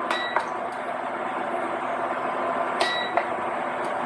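Bacon frying in a skillet, a steady sizzle, with four light clicks and clinks as asparagus spears are handled on a wooden cutting board.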